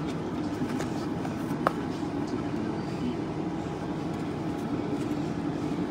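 Steady low background hum with a few faint clicks and one sharper click about one and a half seconds in, from trading cards and packs being handled.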